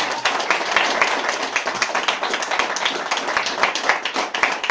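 Small audience clapping and applauding, many hands in quick overlapping claps.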